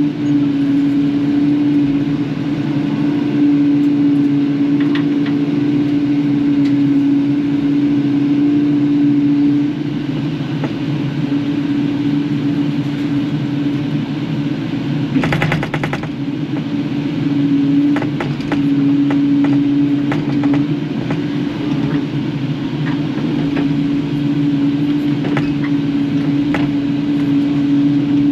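Kubota KX080-4 excavator's diesel engine running steadily at working speed, with scattered knocks and clanks and a short rattle about halfway through, as the machine works through scrap metal and debris.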